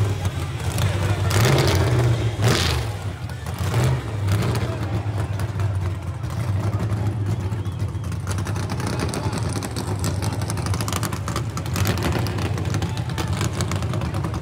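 A car engine running loudly at high revs, a steady drone with a louder rush of noise about two seconds in.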